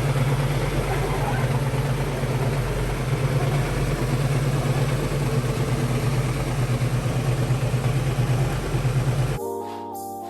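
Ford Mustang engine idling steadily; it cuts off abruptly near the end, where music begins.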